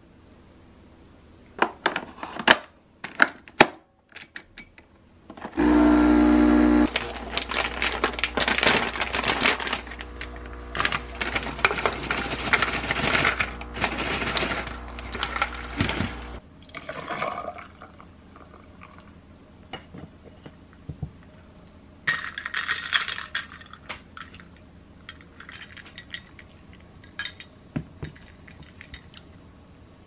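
A few clicks as a capsule is loaded, then a capsule coffee machine's pump starts with a loud buzz about six seconds in and runs for about ten seconds, hissing and sputtering as the coffee brews, before stopping suddenly. After it, quieter scattered rattles and clicks as cereal is handled in a plastic bowl.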